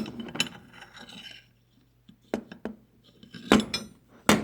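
Metal hand tools clinking and knocking as they are handled and set down on a hard surface. A few light clinks come early, then a short quiet spell, then sharper knocks, the loudest two near the end.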